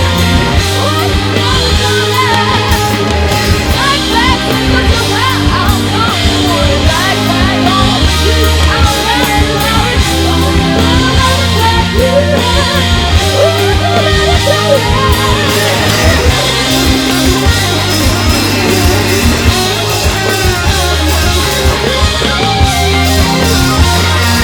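Rock band playing live at full volume: electric guitar, bass and drums, with a lead line that bends up and down in pitch.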